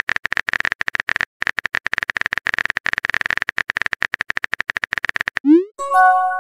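Rapid, even clicks of a phone-keyboard typing sound effect, with a short pause a little over a second in. About five and a half seconds in, a quick rising blip and a short chime of a message being sent, then the clicking starts again.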